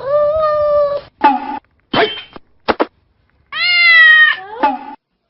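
Domestic cat meowing repeatedly: two long drawn-out meows of about a second each, with several short meows between and after them.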